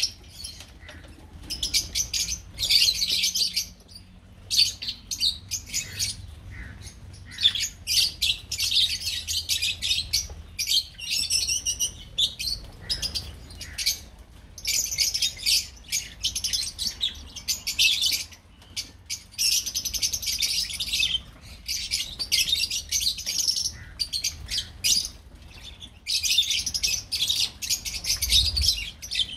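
A flock of lovebirds chattering: dense, shrill chirps come in bursts of a second or two, separated by short pauses, with a few warbling trills in the middle.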